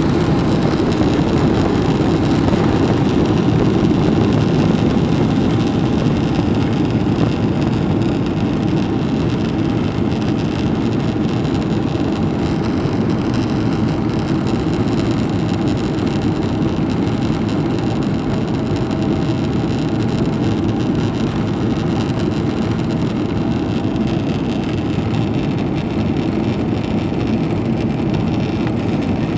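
Boeing 777-200 at takeoff thrust, heard from inside the passenger cabin: a steady, loud rush of engine and air noise through the end of the takeoff roll, liftoff and initial climb, easing slightly after the first several seconds.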